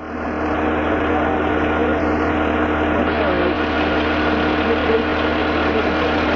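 A lifting crane's engine running steadily under load, a constant hum with a low drone beneath it.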